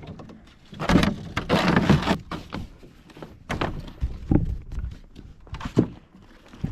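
Thunks and rustling of gear being handled. The loudest is a scraping rustle of about a second, followed by a few separate knocks.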